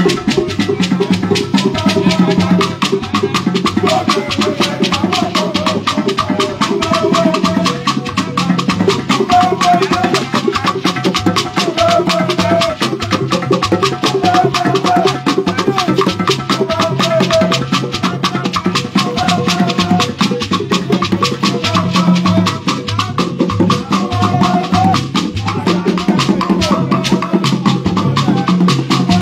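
Igbo ogene group's live traditional percussion: hand drums, struck gongs and shakers playing a fast, dense, unbroken rhythm.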